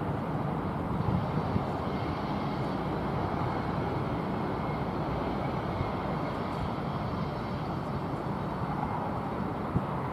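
Freight train cars rolling past on the rails: a steady rumble and rattle, with a few short clicks.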